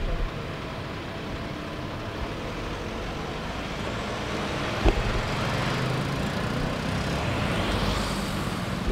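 A Mercedes-Benz Sprinter van driving off along the street, its engine and tyre noise mixed with road traffic. The noise swells from about halfway through and eases near the end, with a single sharp knock about five seconds in.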